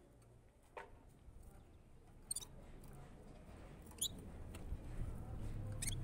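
Caged Gulsar, a small finch-like songbird, giving a few short, high chirps spread through, with one lower falling note about a second in. A faint low rumble builds near the end.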